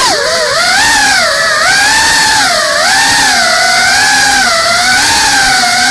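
GEPRC Cinelog 35 cinewhoop's motors and ducted propellers whining, the pitch dropping sharply at the start, then wavering up and down with the throttle.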